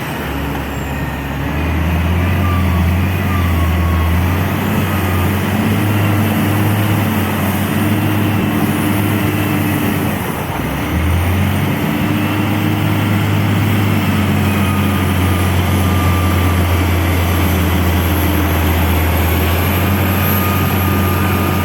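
Heavy diesel engines of coal-loading machinery, a wheel loader and tipper truck, running steadily with a deep low hum, easing briefly about ten seconds in. Faint whistling tones sit above the engine noise.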